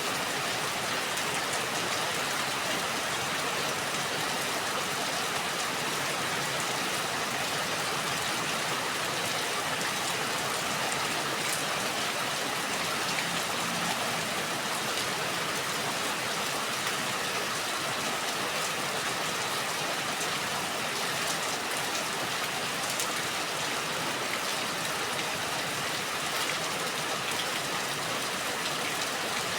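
Steady rain falling: a dense, even hiss with scattered faint drop ticks.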